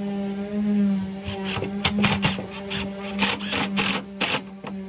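Cordless impact driver running in short stop-start bursts as it drives a deck screw at an angle into the edge of a hard IPE deck board. A steady low hum runs underneath.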